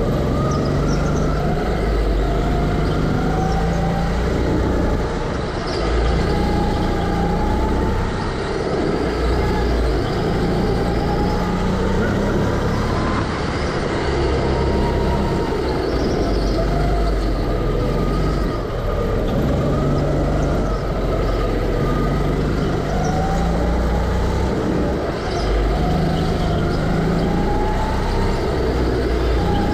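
Go-kart running at speed, its motor note rising and falling every few seconds as it speeds up and slows down, over a steady low rumble and road noise.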